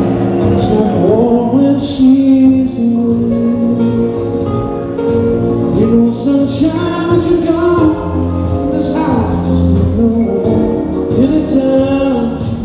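Live rock band playing, with a sung lead vocal over guitars, keyboards and drums with cymbals.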